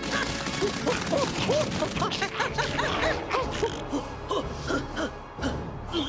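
Cartoon soundtrack music: a fast, busy run of short notes.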